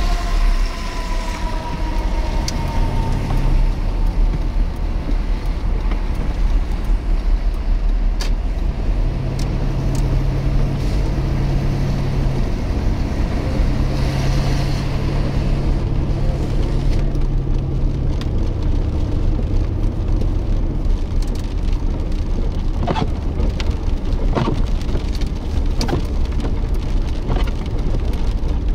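Motor vehicle on the move: a steady low engine and road rumble with a hum that fades out about two-thirds of the way through, and a few sharp ticks near the end.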